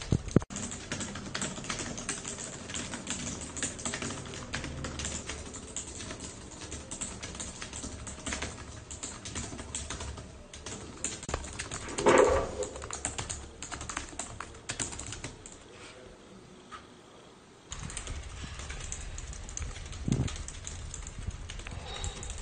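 Fast typing on a computer keyboard: a dense, quick run of keystroke clicks, with one short louder sound about twelve seconds in.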